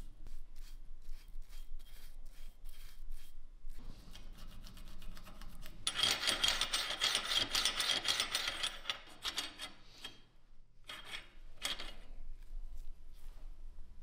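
Steel bolt of a Mauser 98 rifle worked back and forth in its receiver, metal rubbing and scraping on metal, loudest for about three seconds in the middle, with two short scrapes near the end. The action is being checked for friction points, marked with blue marking compound. Before this there are light, quick brush strokes as the compound is painted into the bolt raceway.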